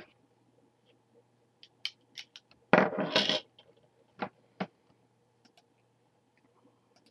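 Handling noise: a few sharp clicks, then a clattering scrape lasting just under a second about three seconds in, the loudest sound, followed by two more clicks.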